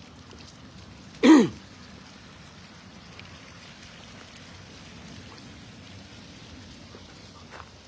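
A person near the microphone clears their throat once, a short loud cough that falls in pitch, about a second in, over a faint steady background hiss.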